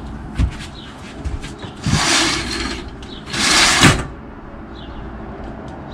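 A sliding patio door rolled open and then shut on its track, two swishes about a second apart, the second ending in a thump as it closes.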